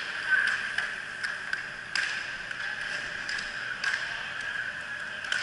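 Inline hockey play: scattered sharp clacks of sticks and puck on the rink floor and boards, irregular and a second or so apart, over a steady background hum.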